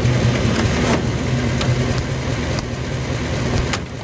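Old car's engine running steadily at low revs as the taxi drives along and comes to a stop, with a few sharp clicks, the last just before the end.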